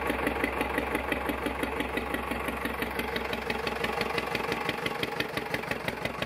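Vintage tractor engine idling steadily, its firing pulses coming in an even, rapid beat.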